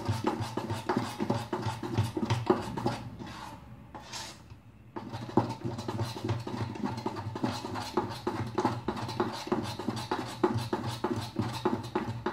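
Idli batter of ground rice and urad dal being beaten by hand in a steel bowl: rhythmic slapping strokes, several a second, which ease off about three seconds in, stop for a moment and pick up again about five seconds in. The beating makes the batter fluffy before it is left to ferment.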